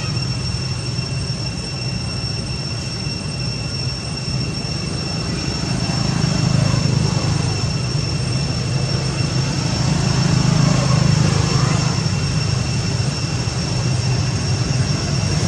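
A steady low engine drone that swells about six seconds in and again about ten seconds in, with a thin steady high whine above it.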